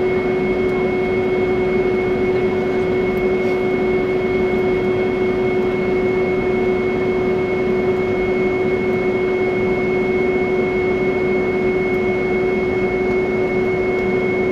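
Steady noise inside an airliner's cabin while it taxis: the engines run at low power with a constant hum and a thin high whine, over the rushing hiss of the cabin air.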